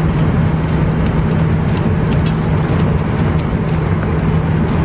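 Steady airliner cabin noise in flight: an even rushing with a constant low hum underneath.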